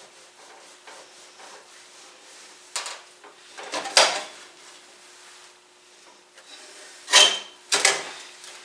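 Scrubbing and scraping at stuck-on food on a stovetop: soft steady rubbing with four short, louder scrapes, two in the middle and two near the end, over a faint steady hum.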